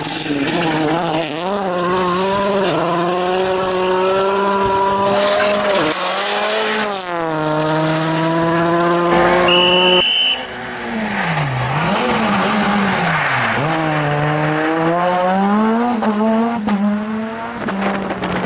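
Rally cars' engines at full throttle, pitch climbing through each gear and dropping at the shifts, across several back-to-back passes.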